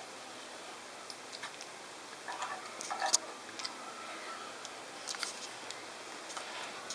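Scattered light clicks and soft rustles of a cat playing with a cord that is dragged and swung over a rug near a toy pram. The sounds come in small clusters, busiest about two to three seconds in and again around five seconds.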